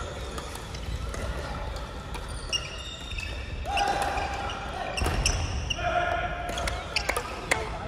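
Crossminton rally in a sports hall: sharp clicks of rackets striking the speeder and footfalls on the court floor, with short shoe squeaks and background voices.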